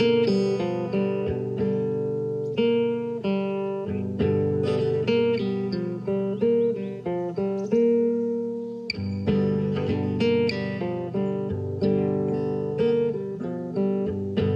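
Soundtrack music: a guitar playing a steady run of plucked notes that strike and fade.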